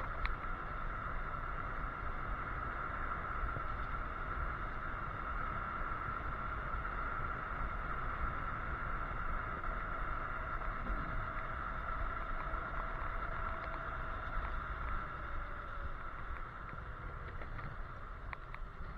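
Electric scooter riding along, its hub motor giving a steady whine over the low rumble of wind on the microphone and tyres on the road.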